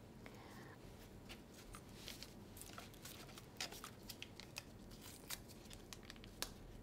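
Faint, scattered clicks and rustles of gloved hands handling a paper wrapper and gauze.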